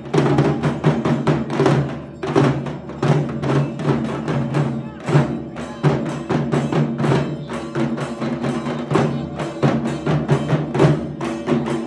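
Several dhak drums, large Bengali barrel drums played with thin sticks, beating a fast, dense rhythm, with a brief break about two seconds in.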